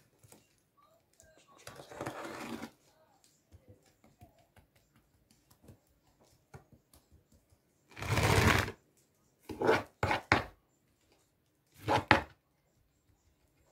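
Hands scraping up cake crumbs from a wooden board and pressing them onto the sides of a cake: light scrapes and ticks with several short rustling bursts, the loudest about eight seconds in.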